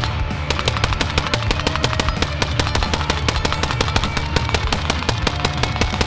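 Suppressed Rifle Dynamics RD-74, an AK-74-pattern short-barrelled rifle in 5.45×39mm, firing a fast string of shots, several a second with hardly a pause.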